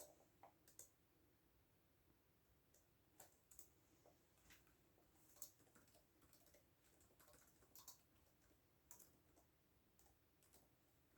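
Sparse, irregular keystrokes on a computer keyboard, faint clicks over a quiet room hum.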